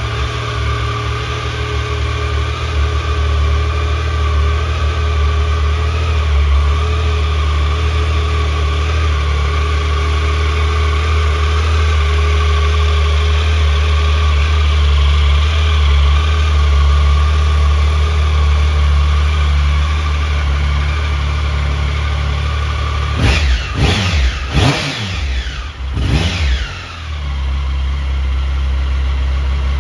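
Triumph Tiger Sport 1050's three-cylinder engine idling steadily, then blipped on the throttle several times in quick succession near the end, the revs rising and falling, before settling back to idle.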